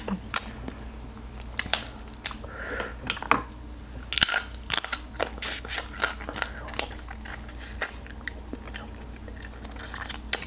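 A person eating seafood close to the microphone: chewing and biting, with many irregular sharp mouth clicks and smacks.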